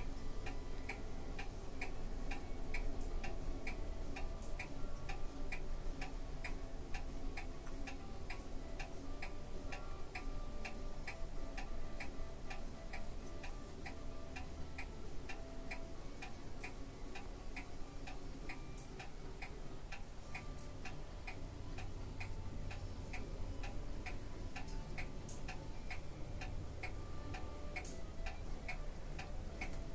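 Steady, even ticking, about two ticks a second, over a low hum.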